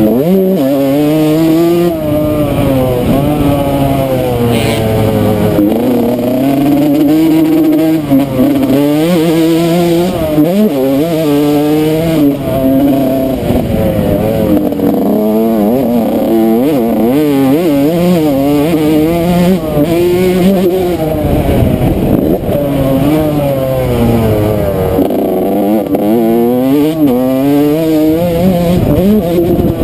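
Yamaha YZ125 two-stroke single-cylinder dirt bike engine, close up, revving hard and falling off over and over as the bike accelerates, shifts and slows around a motocross track, the pitch climbing and dropping several times.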